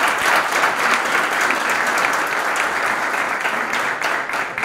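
Audience applauding, a dense patter of many hands clapping, fading away near the end.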